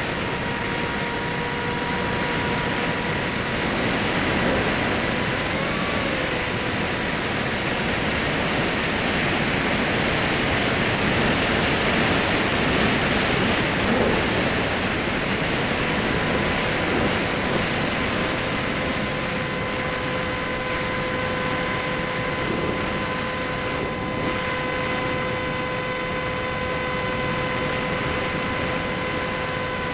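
Electric motor and pusher propeller of a Skysurfer (Bixler) foam RC plane running in flight, heard from the onboard camera: a steady whine over heavy wind rush. The pitch wobbles briefly about six seconds in and settles a little higher about halfway through.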